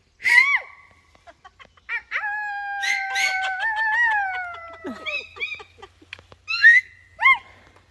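A dog yelping and whining, with one long howl of about three seconds in the middle that drops in pitch at its end, and short yelps before and after it.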